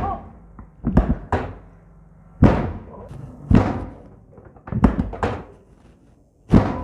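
A series of about eight heavy thuds at uneven intervals, each fading briefly in the room, made during hands-on chiropractic treatment of a patient's back.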